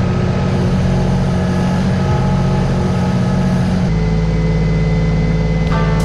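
Ditch Witch SK1050 mini skid steer's diesel engine running steadily as the machine works its hydraulic grapple, lifting and carrying a log section. The engine note changes about four seconds in.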